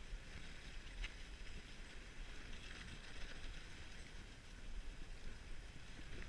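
Dog sled runners sliding over a packed snow trail while the team pulls, a faint steady scraping noise over a low rumble, with a light click about a second in.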